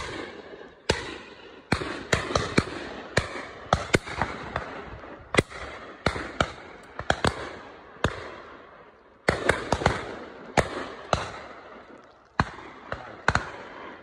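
A rapid, irregular volley of shotgun shots from several guns firing at driven pheasants passing overhead. Some shots are loud and many are fainter, with several coming in quick pairs.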